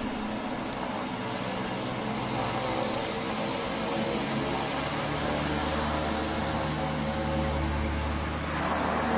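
Airplane engines droning steadily, with a faint high whine above and a deeper hum that grows stronger in the second half.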